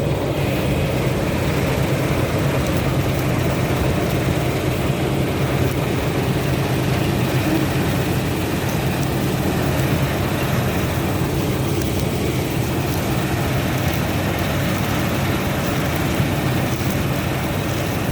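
Combine harvester running steadily while cutting oats, its engine hum and threshing machinery going without a break.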